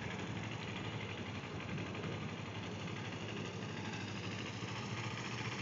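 Kawasaki Ninja sport bike's engine running at low, steady revs as it rides slowly across the lot.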